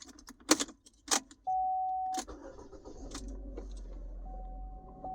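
Key clicks in the ignition of a 2011 Chevy Equinox, a steady chime tone sounds, then the engine starts and runs at idle, with the chime tone returning near the end. The start shows the newly cut and programmed transponder key has been accepted by the immobiliser.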